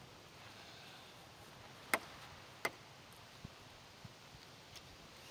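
Quiet outdoor background with two faint sharp clicks, about two seconds in and again under a second later, and a few weaker ticks after.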